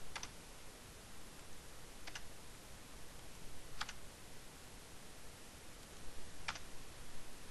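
Single clicks from a computer keyboard and mouse during text editing: four sharp, isolated clicks spaced about two seconds apart, over a faint steady hiss.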